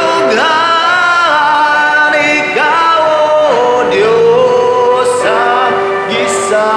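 A man singing a slow Christian song in Bisaya, holding long notes and sliding between pitches.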